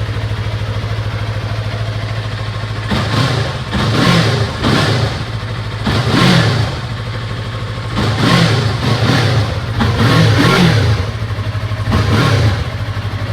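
A 2016 Yamaha R3's 321 cc parallel-twin engine idling cold. About three seconds in it is revved in a run of short throttle blips, each rising and falling in pitch, and it settles back to a steady idle near the end.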